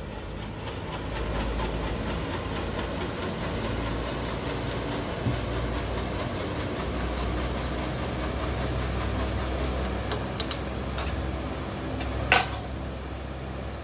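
Wire whisk working in a stainless steel bowl over a gas stove, with a steady low hum throughout. A few sharp metal clicks come near the end, the loudest as the whisk is knocked against the bowl.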